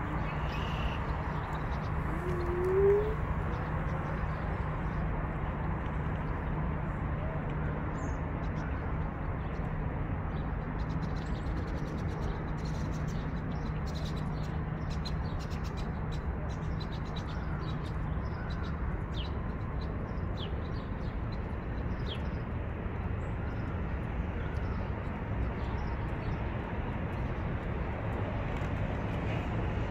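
Steady low hum of city ambience, with a short rising bird call about three seconds in as the loudest sound and faint bird chirps scattered through.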